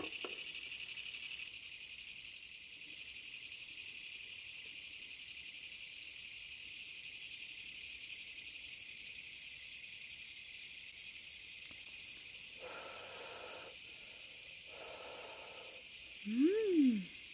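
Crickets chirping steadily in a high, shimmering chorus. Near the end a short, louder sound rises and then falls in pitch.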